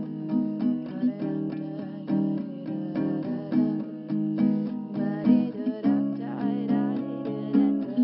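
Acoustic guitar strummed in a steady rhythm, playing as background music.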